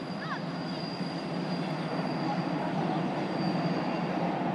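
Steady rumble of a passing vehicle, growing louder, with a faint thin high whine above it.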